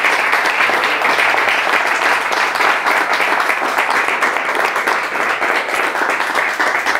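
A crowd applauding: many hands clapping in a steady, sustained round of applause.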